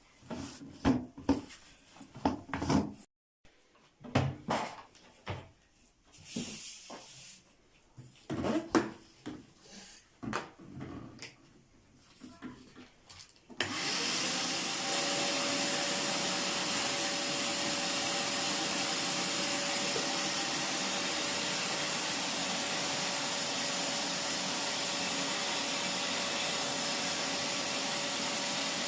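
Plastic parts of a Titan wet and dry shop vacuum knocking and clicking as they are handled and fitted together. About halfway through, the vacuum's motor starts suddenly and runs steadily with a constant whine.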